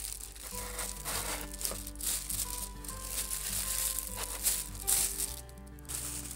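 Iridescent cellophane crinkling in bursts as cones of it are handled and fluffed, over background instrumental music.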